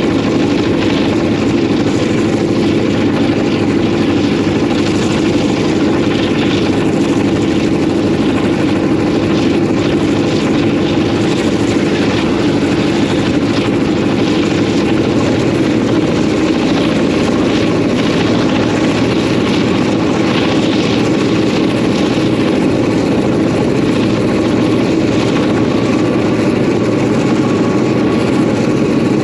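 EMD 567-series two-stroke, Roots-blown locomotive diesel engine running steadily under power as the locomotive moves along, a loud, even sound with no change in speed.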